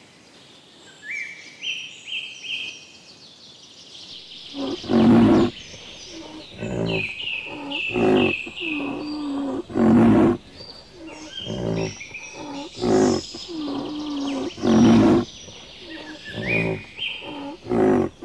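Rhino calling over and over: loud calls about every one to two seconds with quieter ones between, starting about four and a half seconds in. Small birds chirp faintly before and behind the calls.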